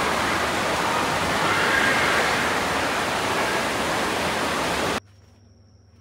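Steady, loud rush of water noise, like a waterfall. It cuts off abruptly about five seconds in, leaving a much quieter background with a faint high steady tone.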